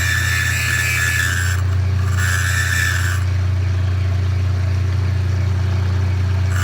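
Vintage Kwik Way valve grinder's electric motor running with a steady hum while the grinding wheel works a pitted valve face, the grinding hiss coming and going: for the first second and a half, again for about a second around two seconds in, then just the motor hum for the rest.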